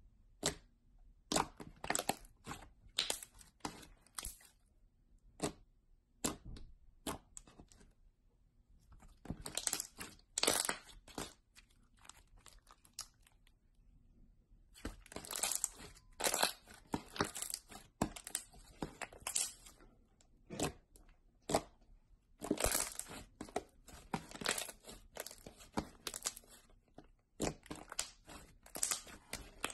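Thick slime being pressed, stretched and squeezed by hand: sticky crackling and tearing sounds in irregular clusters, with short quiet gaps between.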